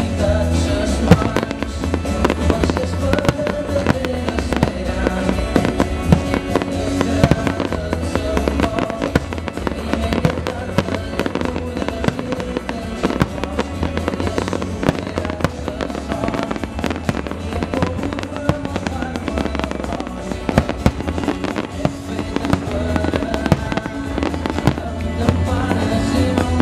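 Fireworks bursting and crackling in many sharp bangs, one after another, over loud music with a heavy bass line.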